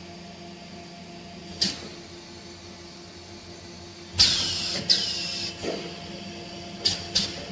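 Multiple-dosing static mixing machine running its automatic dosing cycle: a steady machine hum, broken by sharp hissing bursts. The loudest are two about four and five seconds in, falling in pitch, and there are two short clicks near the end.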